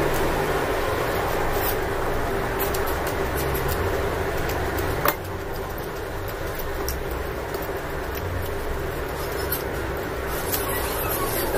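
A steady low rumble and hiss of background noise, with scattered soft clicks of chewing and fingers handling food, and one sharp click about five seconds in.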